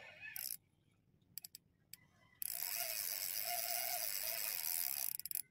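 Spinning reel being cranked to retrieve line, its gears whirring steadily for about three seconds from just before halfway in, then stopping suddenly. A brief burst of cranking comes at the very start, with a few light clicks before the long retrieve.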